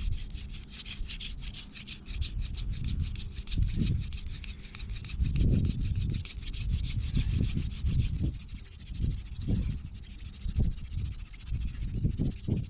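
Elder spindle spun back and forth between the palms into the notch of an ivy hearth board, a hand drill grinding out dust for a friction-fire ember. It makes a rapid wooden rasping that fades out about two-thirds of the way through, over low irregular rumbles.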